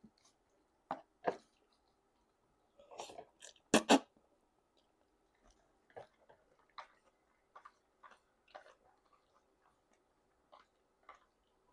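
Close-miked chewing of a mouthful of jajangmyeon noodles: scattered wet mouth clicks and smacks, loudest about three to four seconds in.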